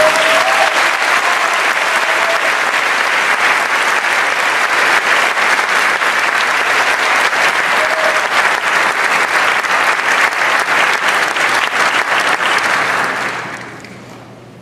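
Theatre audience applauding steadily after a ballet number, the clapping dying away in the last couple of seconds.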